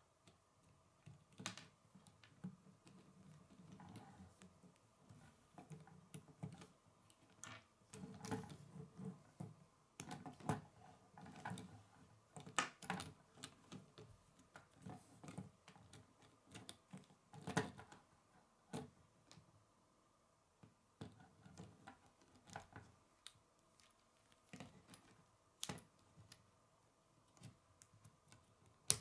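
Plastic K'nex rods and connectors clicking and snapping as they are handled and fitted together: faint, irregular sharp clicks, a few of them louder.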